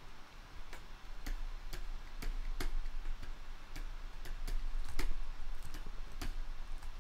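Computer mouse clicks: a dozen or so short sharp clicks at uneven intervals, about two a second, over a faint low hum.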